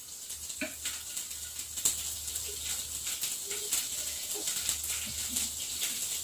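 Mustard seeds and wet curry leaves spluttering in hot coconut oil in a kadai: a steady stream of irregular sharp pops and crackles. The water on the curry leaves makes the oil spit out of the pan.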